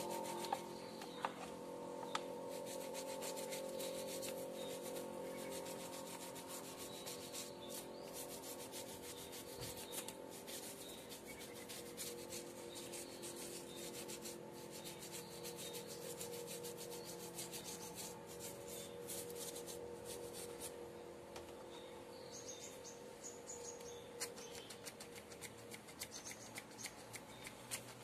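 Toothbrush scrubbing soap into the bark of a bonsai trunk and branches, a quick run of short bristle strokes, to clean off moss. A steady hum of level tones lies underneath.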